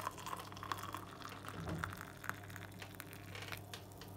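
Water poured into a porcelain mug onto coffee powder, splashing and trickling irregularly as the mug fills and the coffee foams.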